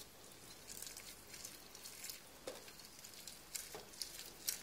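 Half a blood orange being twisted by hand on a hand citrus juicer: faint wet squishing and scraping, with scattered soft clicks.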